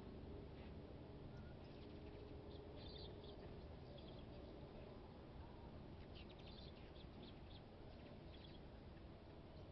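Faint high chirps of hummingbirds, coming in short clusters several times, over a low steady background hum.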